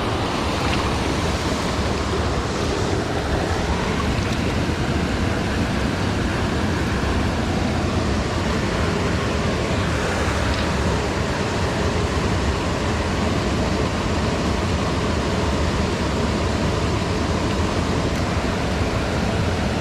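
Rushing water of a small trout stream, a steady, unbroken noise.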